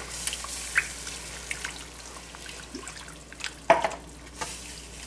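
Gravy sizzling in a frying pan as it is stirred, thinned with beef broth, with scattered small clicks and one sharp clink about three and a half seconds in.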